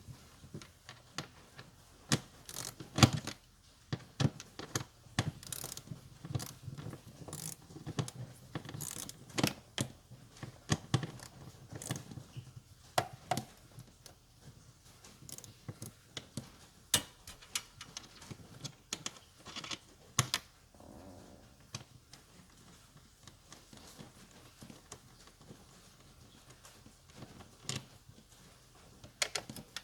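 Irregular metallic clicks, taps and clanks of hand tools and parts being handled during car battery removal or fitting.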